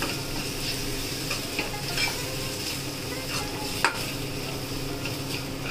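Sliced onions, green chillies and herbs sizzling in hot oil in a frying pan while a metal spoon stirs and scrapes them, with a few sharp clicks of the spoon against the pan, the loudest a little under four seconds in.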